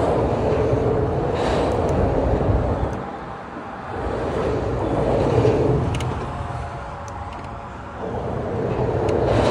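Noise of busy road traffic on the bridge directly overhead, swelling and fading as vehicles cross, with two brief lulls.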